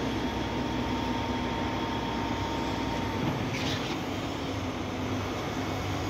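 Truck-mounted concrete pump's diesel engine running steadily, with a short hiss about three and a half seconds in.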